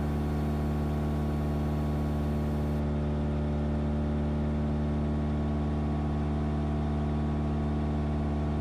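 Single-engine Cessna's piston engine and propeller running steadily in flight, heard from inside the cabin as a constant drone with no change in pitch.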